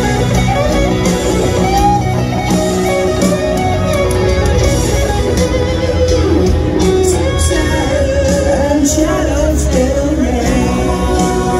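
Live rock band playing a power ballad, led by an electric guitar solo with bent and sliding notes over drums, bass and keyboards.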